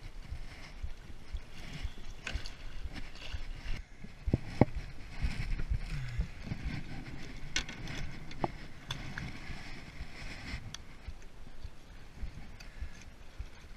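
Water lapping and slapping against a small fishing boat's hull, with scattered sharp knocks and clicks; the loudest knock comes about four and a half seconds in.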